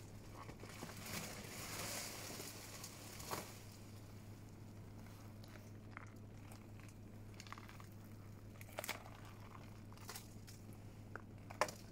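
Faint rustling and crinkling of a freeze-pop package being handled, with a few light knocks.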